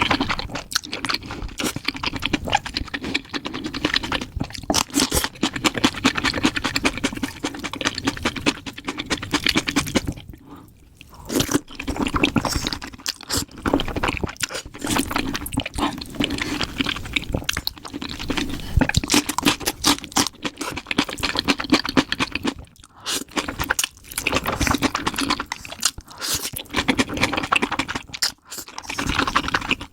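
Close-miked eating sounds played at double speed: rapid crunching and chewing of food, with a short lull about ten seconds in.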